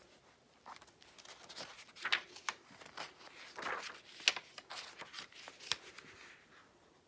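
Hardcover picture book being opened and its paper pages turned by hand: a run of page rustles and flaps, with a few sharper snaps in the middle.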